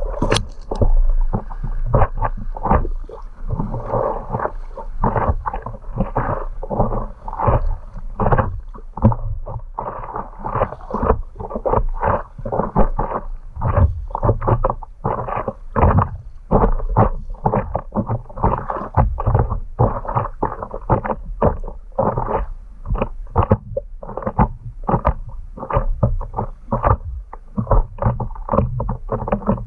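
Choppy water slapping and splashing against the nose of a stand-up paddleboard, close to a board-mounted camera. It is a dense, irregular run of slaps, several a second, over a steady low rumble.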